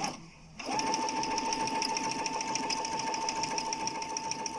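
Brother Innov-is 27SE computerised sewing machine starting up about half a second in and running steadily, stitching through a single layer of fabric, with a steady motor whine and a fast, even patter of needle strokes.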